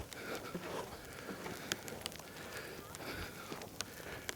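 Footsteps crunching on snow, an irregular run of soft crackles and sharp clicks.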